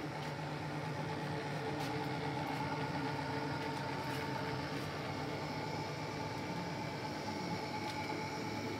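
Kearney & Trecker Rotary Head D milling machine running, a steady mechanical hum from its motor and gearing with a few constant tones.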